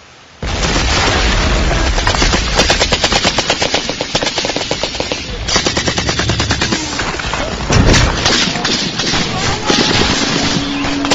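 Rapid automatic gunfire, machine-gun bursts in quick succession, starting abruptly about half a second in, with one heavier blast about eight seconds in. A steady engine-like drone joins near the end.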